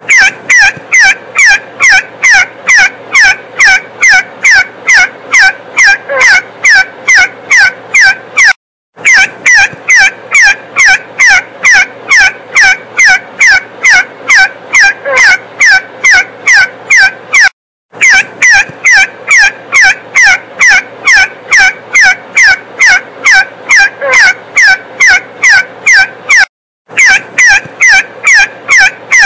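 See-see partridge calling: a short whistled note falling in pitch, repeated about twice a second in long runs, broken by brief silences about every nine seconds.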